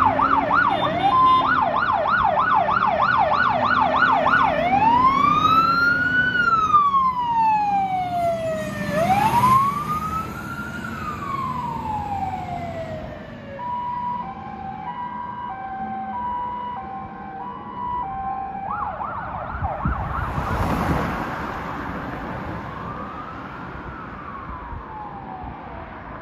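Fire engine's electronic siren on an emergency run, switching between patterns: a fast yelp, then slow rising-and-falling wails, then a two-tone hi-lo, then yelp and wail again. It fades as the truck drives away.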